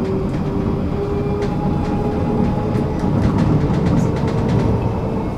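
Tram running on rails: a steady rumble with an electric motor whine that rises in pitch, as when picking up speed, and scattered sharp clicks from the wheels on the track. The whine stops right at the end.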